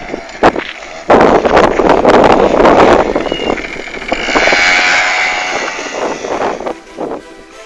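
Suzuki Sepia ZZ 50 cc two-stroke scooter engine revving as the scooter pulls away across loose gravel. A loud rough rush comes from about a second in, then the engine fades as the scooter rides off.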